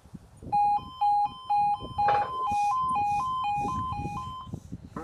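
Railway level crossing warning alarm starting up: a single-pitch tone beeping about twice a second, which changes about halfway through to a tone alternating between two pitches. It warns that a train is approaching and the barriers are about to come down.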